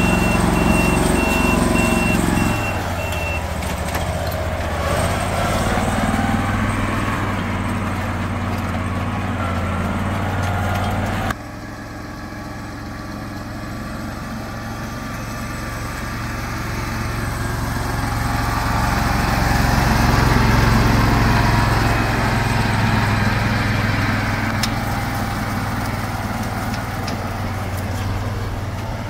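Engine of a farm machine running steadily, with a high on-off beep over the first few seconds. The sound drops abruptly about 11 seconds in and then slowly grows louder again.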